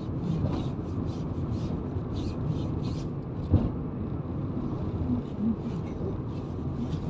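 Steady low rumble of a car on the move, heard from inside the cabin, with faint voices under it.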